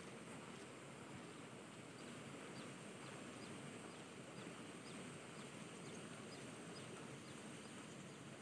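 Faint outdoor hiss with a small bird's short, high, falling chirps, repeated evenly about every three-quarters of a second from about two seconds in.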